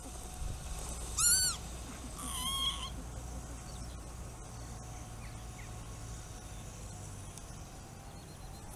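Northern lapwing calling twice about a second apart, each call rising then falling in pitch, over a low steady rumble.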